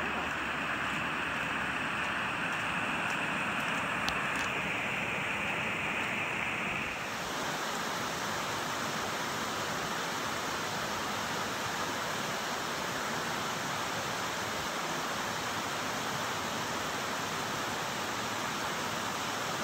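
Steady rushing of a small rocky creek cascading over boulders. About seven seconds in, the sound changes to a wider, brighter rush that then holds steady.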